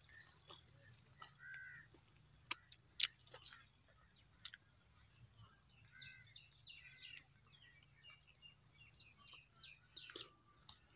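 Faint birds chirping and calling, several short whistled and arched notes at a time, with a few sharp clicks, the loudest about three seconds in.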